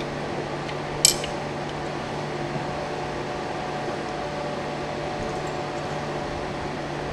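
A steady low hum with hiss, broken by one sharp click about a second in as the picked pin-tumbler lock is handled to be taken apart.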